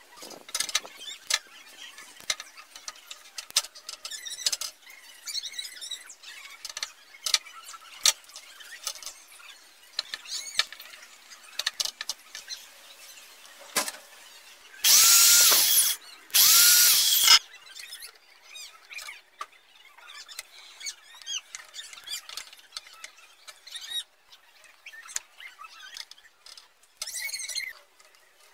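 Clicks and knocks of parts being handled at a workbench. About halfway through, two short bursts of a power drill, each about a second long, with a whine that rises as the motor spins up and drops as it stops.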